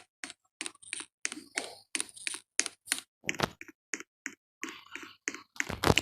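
A quick, irregular run of short clicks and taps, about three or four a second, with silent gaps between them.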